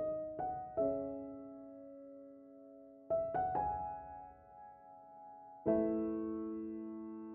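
Slow, gentle solo piano music. A few single notes are struck near the start and again after about three seconds, and a fuller chord comes near the end, each left to ring and fade.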